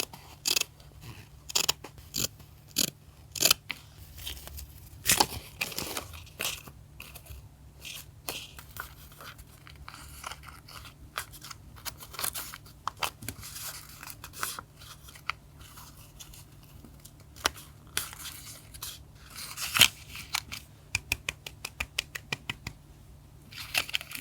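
Paper crafting sounds: scissors snipping and paper rustling and tearing at irregular intervals, with a quick run of small clicks near the end.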